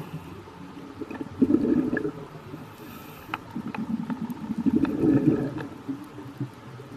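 Underwater bubbling and gurgling of air, in two bursts about three seconds apart, over a low rumble with a few sharp clicks.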